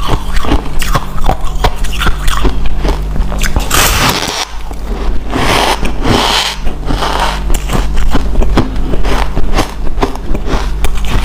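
Powdery white ice being bitten and chewed: dense crisp crackling crunches, with louder spells of grinding crunch about four and six seconds in. A steady low hum runs underneath.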